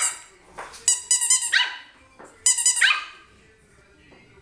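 Short runs of squeaks from a squeezed squeaky toy ball, each answered by a Yorkshire terrier puppy's high-pitched, rising yip, twice.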